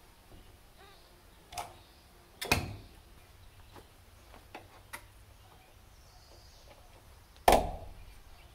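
Clicks and knocks of an electrical plug being pushed into and pulled out of a wall outlet: a few faint ticks and two louder clacks about five seconds apart.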